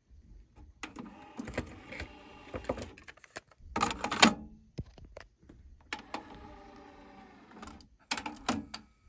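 A cassette being loaded into Deck 1 of a Technics RS-TR373 cassette deck: plastic handling noise as the door is opened and the tape is put in, with loud plastic clacks about four seconds in. Near the end come a few sharp clicks as the door is pushed shut.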